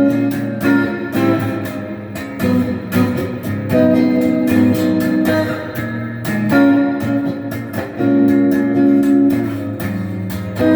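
Donner DST200 Strat-style electric guitar played through an amp on a clean setting, with two of its stock single-coil pickups selected together: picked and strummed chords in a short phrase repeated about every four seconds.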